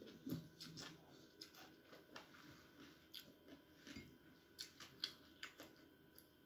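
Faint close-up eating sounds: slurping rice noodles and chewing, an irregular string of soft wet clicks and smacks from the mouth.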